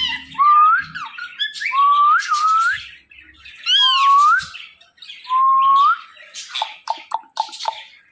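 Indian ringneck parakeet calling: a series of loud upward-sliding whistles, each about half a second long, mixed with harsh chattering squawks. A quick run of short clicking chatter comes about seven seconds in.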